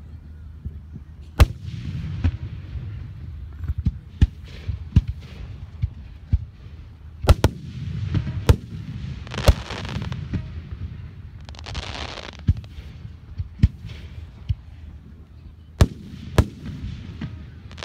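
Aerial firework shells bursting in a display, more than a dozen sharp bangs at uneven spacing, some in quick pairs. Between them come a couple of longer rushes of hissing crackle.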